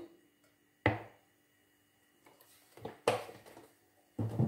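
Three sharp knocks of kitchenware against a metal cooking pot as a tablespoon of oil is put into it, the last one near the end.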